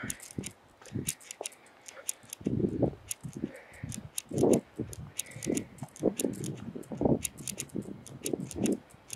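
Someone walking on a concrete sidewalk: irregular low footfalls and handling bumps, with many small sharp clicks and ticks throughout.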